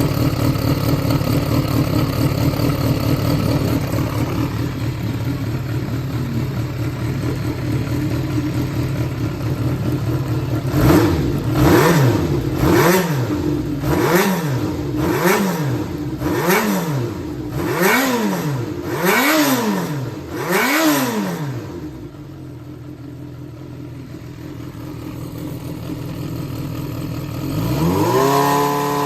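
Yamaha XJR400 (4HM) air-cooled inline-four engine idling, then blipped about eight times in quick succession, each rev rising and falling back, before settling to idle; near the end the revs climb and hold at a steady higher speed. The seller presents it as running well with no abnormal noises.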